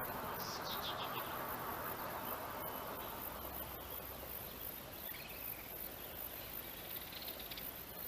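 Faint high chirps over a steady outdoor hiss: short clusters of calls about a second in and again near the end, with a single curving chirp in the middle.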